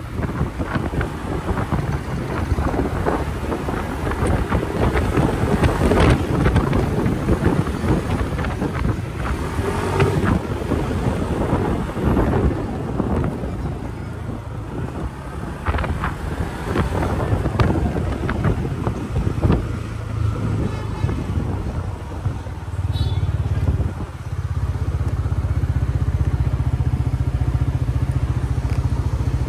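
Kymco KRV 200 scooter being ridden, its engine mixed with uneven wind and road noise on the microphone. For the last few seconds it settles into a steady low engine hum.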